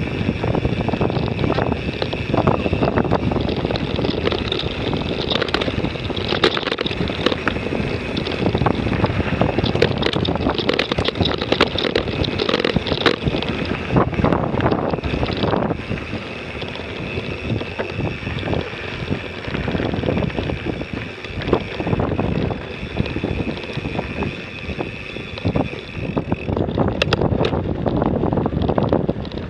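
Mountain bike rattling and clattering over a rough dirt trail, with many small knocks, and wind buffeting the action camera's microphone.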